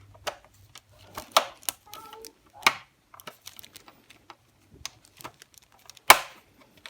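Irregular sharp clicks and taps of tools and plastic laptop parts being handled while the laptop is taken apart, the loudest click near the end.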